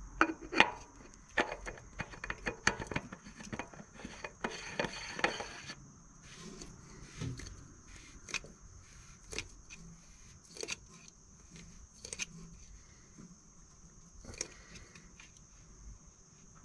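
Small clicks, knocks and scrapes of a new spin-on oil filter's metal canister being turned by hand onto its mount. The clicks come quickly over the first six seconds, with a short scraping rustle about five seconds in, then thin out to an occasional single click.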